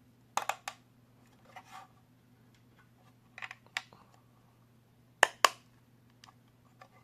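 Sharp clicks and taps of small ball bearings and 3D-printed plastic parts being handled and pressed into place by hand, scattered irregularly, with the two loudest clicks close together a little past five seconds in. A faint steady low hum underneath.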